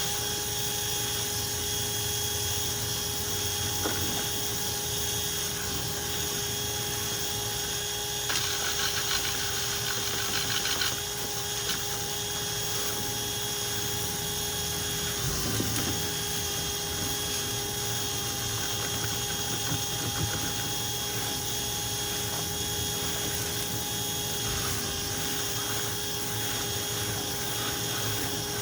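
Power drill spinning a rotary dryer-vent cleaning brush through the duct, a steady whine throughout. A stretch of rattling and scraping comes about a third of the way in, and the pitch dips briefly around the middle.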